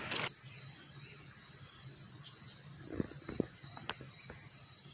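Insects trilling steadily at a high pitch, with a few soft knocks about three seconds in.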